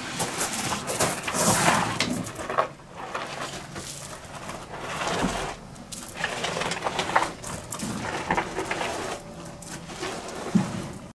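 A person being dragged across a gravel floor in a struggle: uneven scraping and crunching with scattered knocks, cutting off abruptly at the end.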